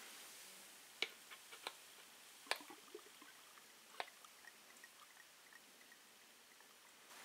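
Near silence with a handful of faint, sharp clicks in the first four seconds, then soft ticks about three a second: a clear plastic bottle being handled in gloved hands.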